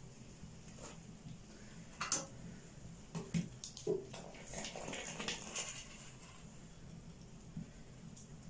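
Steel kitchen utensils clinking a few times against a steel pot and plate, with a steel ladle scooping and pouring tea in the pot about halfway through.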